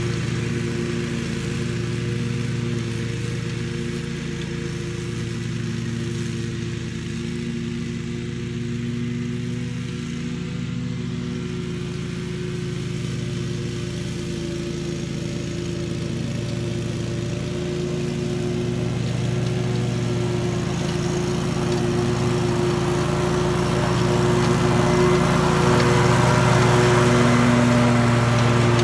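Scag walk-behind mower's engine running steadily while cutting grass. It fades a little as the mower moves away, then grows louder as it comes back close near the end.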